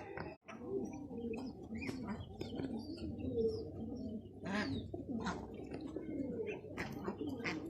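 Domestic birds in a pen calling: many short, low calls overlapping one another, with a few louder calls about four and a half seconds in and again near the end.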